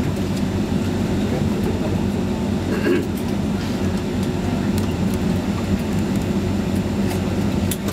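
Steady low hum and rumble inside a Boeing 767 cabin, with a few faint clicks, one about three seconds in and one near the end.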